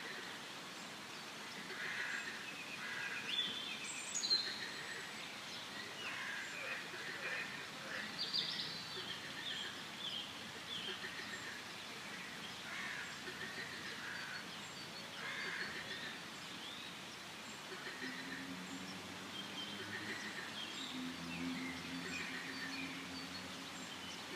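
Forest ambience: many birds chirping and calling at once, with a few louder, higher chirps about four seconds in. Over the last six seconds, low drawn-out calls join in underneath the birdsong.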